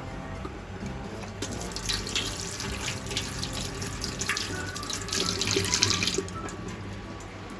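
Water running from a kitchen tap into a sink for a few seconds, starting about a second and a half in and stopping near the end, with some splashing and clatter.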